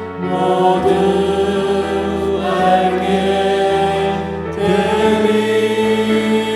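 Church praise music: sustained chords without clear sung words, shifting about a second in and again near the end.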